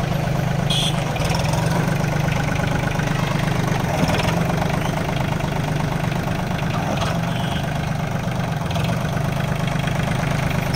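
Swaraj Target 630 mini tractor's 29 hp Yanmar diesel engine idling steadily.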